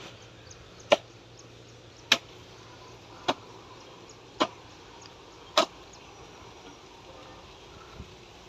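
Hand digging hoe chopping into hard earth: five sharp strikes about a second apart, then a softer one near the end.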